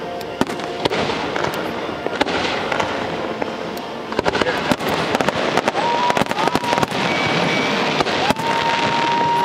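Aerial fireworks bursting in quick succession: sharp bangs and dense crackling that grow busier about halfway through. A steady high whistle is held for about two seconds near the end, over a murmur of spectators' voices.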